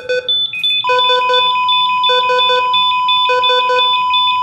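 Heart monitor sound effect: quick beeps in short groups repeating about every second and a quarter, joined about a second in by a continuous steady flatline tone. The flatline is the sign that the patient's heart has stopped.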